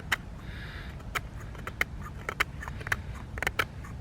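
Knife blade of a cheap multi-tool shaving curls off a frozen stick for feather sticks: a run of short, sharp cutting cracks, about one every half second, over a low steady rumble.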